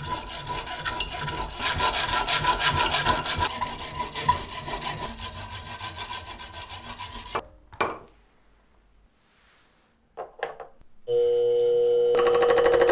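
Saw blade cutting through a brass tube held in a vise, a loud, fast, steady rasp that stops about seven seconds in. A few seconds later a small metal lathe starts up and runs steadily.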